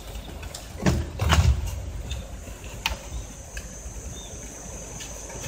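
Handling knocks: a dull knock about a second in, then a heavier rubbing thump, and a few light clicks later. A faint steady high whine runs underneath.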